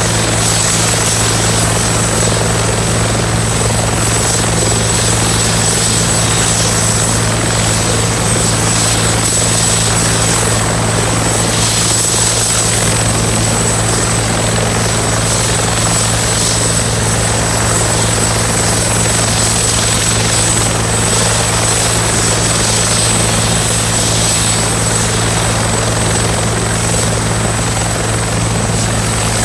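Military helicopter running steadily at close range: a high, steady turbine whine over a constant low drone from the engine and rotor.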